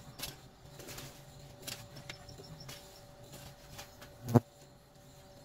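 Scattered light clicks and knocks, with one much louder thump about four seconds in, over a faint steady hum.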